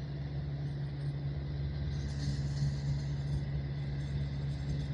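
Helicopter running on the ground at idle after landing: a steady engine and rotor hum with a constant low drone.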